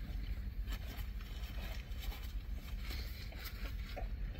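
Two people chewing mouthfuls of burger, with scattered small wet clicks, over a steady low rumble inside a car cabin.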